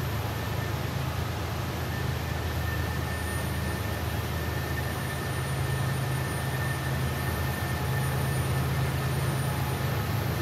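Diesel locomotives of a BNSF freight train running steadily, a low drone, with a faint high whine over it for most of the stretch.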